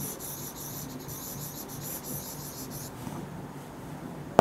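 Pen strokes scratching across a board as words are handwritten, busiest for the first three seconds and softer after, ending in a sharp tap.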